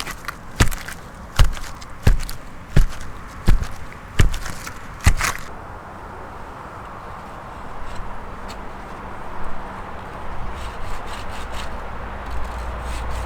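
Chopping: about eight sharp blows at an even pace, one every 0.7 seconds or so, stopping about five seconds in.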